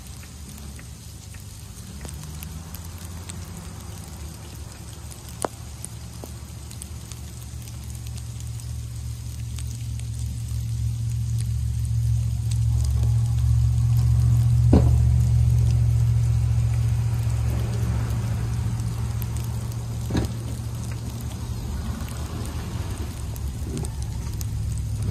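Snowplow trucks' engines running, a low rumble that swells to its loudest midway as a truck moves close and then fades, over a steady hiss of wet precipitation. Three sharp knocks stand out, about five, fifteen and twenty seconds in.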